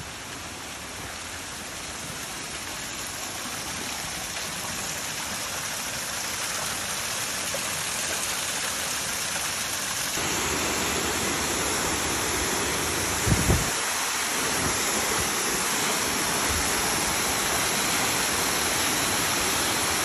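Waterfall rushing steadily, growing louder as it is approached, with a brief low thump about two-thirds of the way through.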